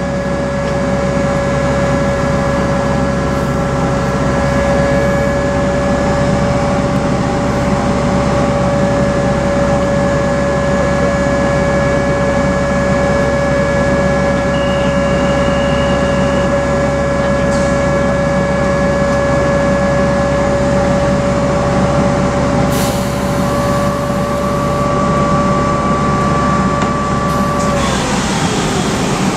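Electric locomotive 9901 standing with its onboard equipment running: a loud, steady hum with a constant whine. Near the end the whine slides down in pitch and the low hum stops, as if some of the machinery is winding down.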